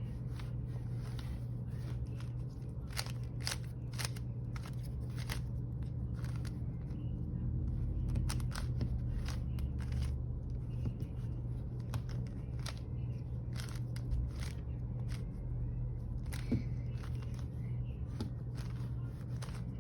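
Rubik's cube layers being twisted by hand: irregular plastic clicks and scrapes, roughly one or two a second, over a steady low hum.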